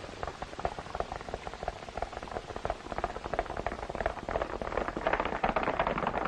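Horse galloping: a rapid, irregular patter of hoofbeats that grows louder as the horse comes closer.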